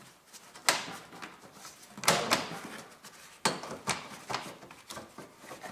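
Plastic windshield-wiper cowl cover pieces of a Honda Civic being unclipped and pulled free by gloved hands: a run of sharp plastic clicks and knocks with short scraping rubs, the loudest about two seconds in.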